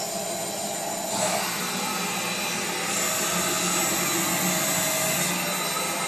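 Mini CNC machine running, a steady motor noise with a low hum. A broad hiss comes in about a second in, and a high thin whine joins from about three seconds to about five.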